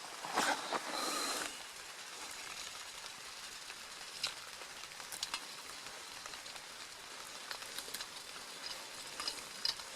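Steady hiss of rain falling, with scattered light ticks and a louder rush of hiss for about a second near the start.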